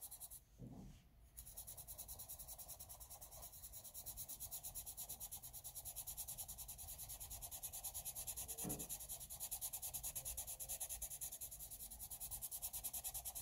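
Derwent blender pencil rubbing over layers of coloured pencil on paper in quick, even back-and-forth strokes, blending the colour to smooth away the paper's grain. Faint, with a short pause near the start and a soft knock a little past halfway.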